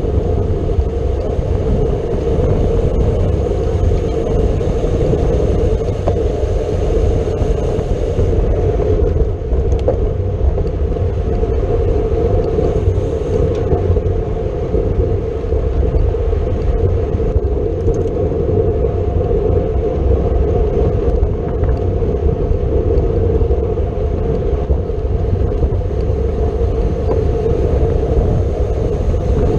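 Steady rush of wind over the microphone of a road bike ridden at race speed, mixed with constant tyre and road noise.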